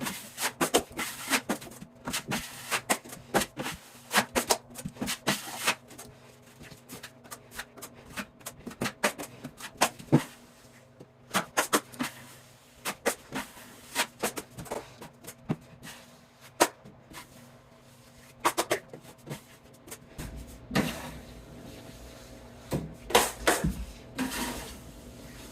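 Metal drywall knife spreading and scraping quick-set joint compound on a wall: a quick, irregular series of short scrapes and clicks, with a steady low hum joining near the end.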